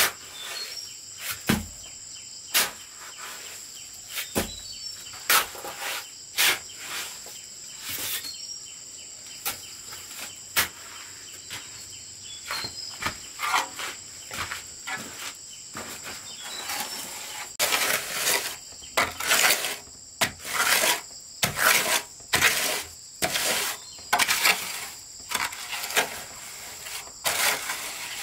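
Insects droning steadily in two high tones, over irregular sharp knocks and clicks about once a second; about two-thirds of the way through, the knocks give way to quicker, longer scraping strokes.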